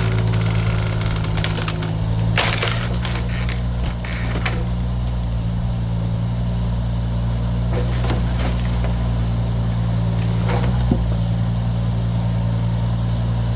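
John Deere 26G mini excavator's diesel engine running steadily under work, with wood cracking and splintering several times as the machine breaks it up, the loudest crack about two and a half seconds in.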